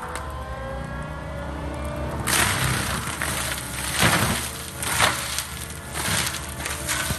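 Gyro-Trac 500HF forestry mulcher on a tracked loader: the engine and spinning mulcher drum run with a whine that shifts in pitch. About two seconds in, the drum bites into brush and wood, grinding and splintering in loud bursts, with two peaks in the second half.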